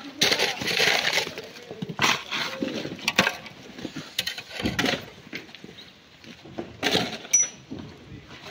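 Rock being struck and broken: sharp knocks and clinks at uneven spacing, roughly one a second, with a brief high ring from one strike near the end.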